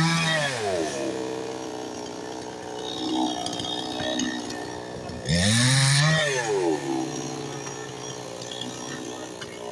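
Chainsaw engine revved to full throttle twice and let back down to idle. The first rev is already held high and falls away within the first second. The second climbs sharply a little after five seconds in, holds a steady high pitch for about a second, then drops back to a low idle.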